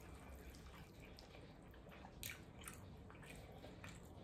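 Faint close-up eating sounds: wet chewing and smacking of cold noodles and pork belly, with scattered soft clicks, one a little louder about two seconds in.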